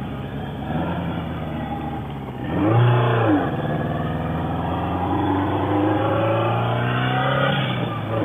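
Motorcycle engine running under way, with a brief rev up and back down about three seconds in, the loudest moment, then its pitch climbing steadily as it accelerates before falling off near the end.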